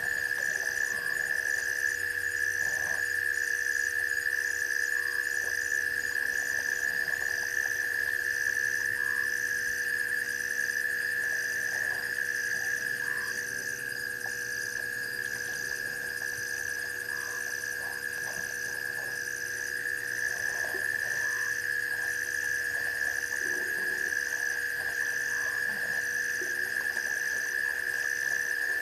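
Night chorus of frogs and insects: a steady high trill runs without a break, a higher chirp pulses about once a second over it, and short scattered calls come and go.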